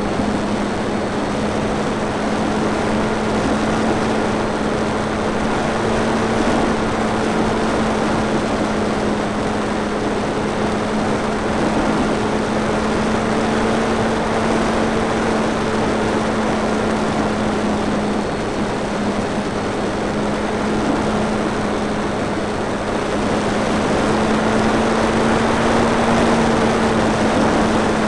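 Electric motor and propeller of a Multiplex FunCub RC plane in flight, heard from its onboard camera: a steady drone at a constant pitch under a heavy rush of air noise, a little louder near the end.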